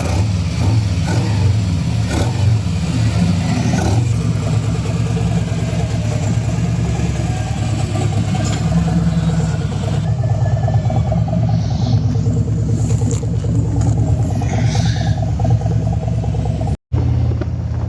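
Harley-Davidson V-twin engine and exhaust running steadily, with no clear revving. The sound cuts out for an instant near the end.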